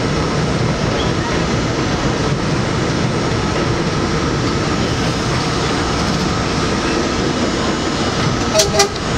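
New York City subway J train running at speed on elevated track through a station without stopping, heard from the front window of the lead car: a steady rumble and rail noise with a steady whine. A quick pair of sharp clacks comes near the end.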